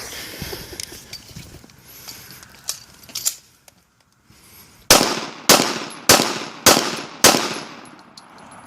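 Five gunshots fired in an even string, about 0.6 s apart, each trailing off in a short echo. Before them come a few seconds of low rustling and a couple of clicks.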